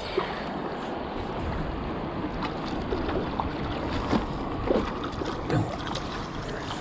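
Freestone river water rushing over rocks: a steady rush with small, brief gurgles and splashes scattered through it.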